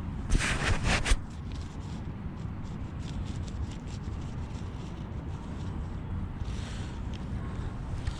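A hand trowel scraping into the ground, loud at first and again briefly near the end, with small ticks of soil, over a steady low rumble of wind on the microphone.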